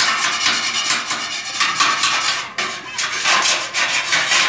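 A hand tool scraping across the sheet-steel roof of a tricycle sidecar in repeated rasping strokes, a few each second.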